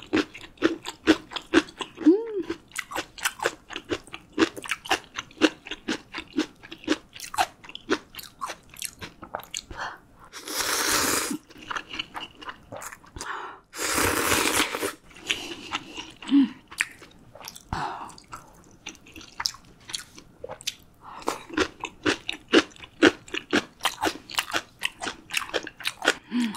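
Close-miked eating of instant ramyun: steady chewing with many quick wet mouth clicks and crunches. Two long noodle slurps come about ten seconds in and again about fourteen seconds in.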